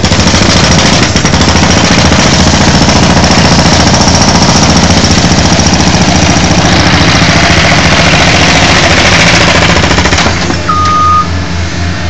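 A skid steer's hydraulic breaker hammer pounds a 10-inch concrete slab, loud and continuous with rapid hammering. It stops about ten seconds in, leaving the loader's engine running, with a brief beep just after.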